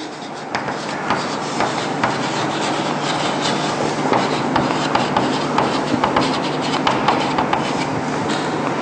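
Chalk writing on a chalkboard: a run of short scratching strokes and light taps as words are written out, over a faint steady low hum.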